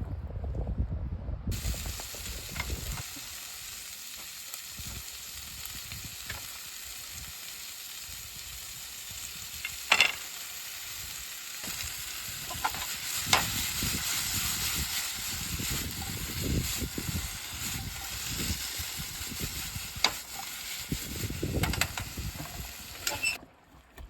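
Food sizzling steadily in a hot pan and being stirred, with sharp clicks of a utensil knocking against the pan a few times.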